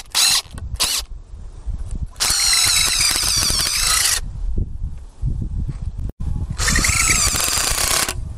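Black+Decker drill driving screws into a wooden fence brace. A few short trigger pulses come first, then two longer runs of about two seconds and a second and a half, the motor's pitch wavering under load.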